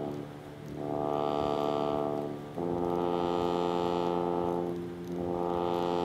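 Software synthesizer playing sustained, harmonically rich notes while its low-pass filter cutoff is swept down and up by a MIDI controller knob, so the tone muffles and brightens by turns. The note changes to a different pitch about two and a half seconds in.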